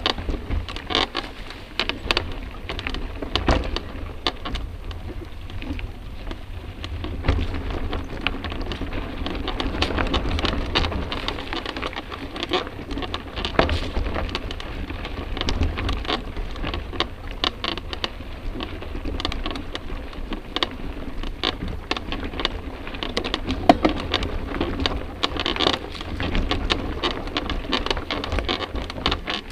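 Mountain bike rolling over a rough dirt singletrack, heard through a camera mounted on the bike: a dense, irregular clatter of rattles and knocks from the bike and mount over a continuous low rumble.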